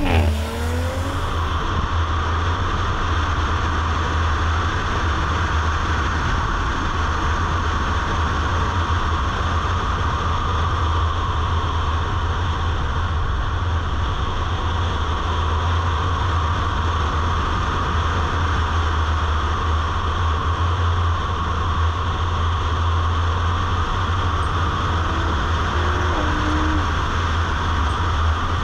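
Audi RS5 Sportback driving on a wet track: a steady rush of wind and tyre noise over a deep, even rumble, with no clear rise and fall of the engine.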